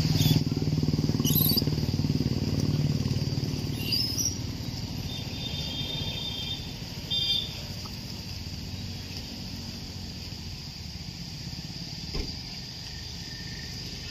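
Roadside outdoor ambience: insects droning steadily at a high pitch, with a few short bird chirps in the first seconds, over a low rumble that fades away over the first few seconds.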